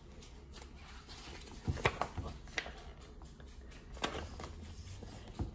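A page of a large hardcover picture book being turned and handled: a few short papery rustles and taps, the loudest about two seconds in.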